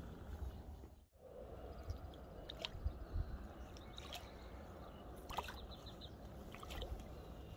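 Faint lake water splashing and dripping at the shoreline as hands work in the shallows, with scattered small splashes over a steady low wind rumble on the microphone.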